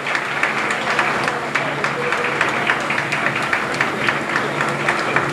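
Crowd applauding, with many scattered sharp claps, over a murmur of voices.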